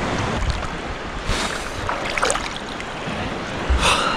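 Sea water splashing and lapping right by the microphone as a person moves about chest-deep in it, with a few short louder splashes: one about a second in, another midway and one near the end.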